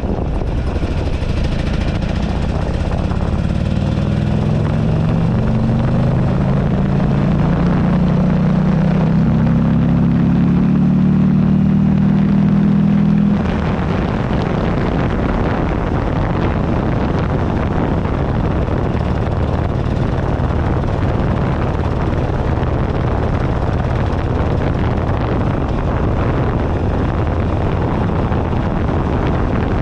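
A 2008 Buell Ulysses XB12XT's 1203 cc V-twin engine pulls under acceleration, its note rising steadily for about thirteen seconds. Then the engine note drops away suddenly, and wind rush on the microphone dominates, with the engine low underneath.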